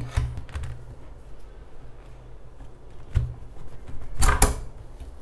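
A tricycle's parental push-handle tube being pushed down into its socket. There is a light knock about three seconds in, then a louder double click-clunk about four seconds in as the spring release latch snaps into place.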